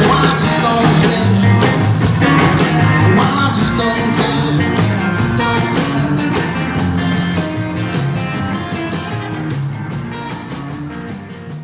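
Live rockabilly band playing, with hollow-body guitar, upright bass, drums and electric guitar; the music fades steadily over the last few seconds.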